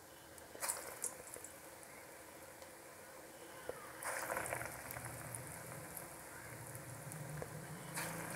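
Hot oil sizzling steadily in a steel kadai as lumps of green-pea bonda dough are dropped in by hand. Each drop sets off a short, louder burst of fizzing: three times, near the start, about halfway and near the end, the middle one the loudest.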